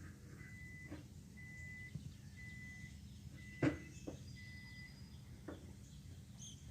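Microwave oven beeping faintly in the background, about five steady high beeps roughly once a second, signalling that it has finished. A sharp click a little past halfway is the loudest sound, with a few softer clicks around it.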